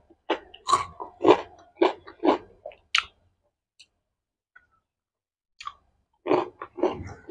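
Close-miked chewing, with wet mouth clicks and smacks. It stops about three seconds in and starts again near the end.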